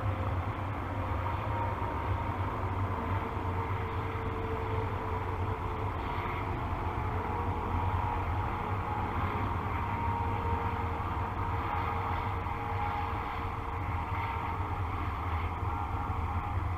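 Steady low rumble with a faint, slightly wavering hum: distant engine noise.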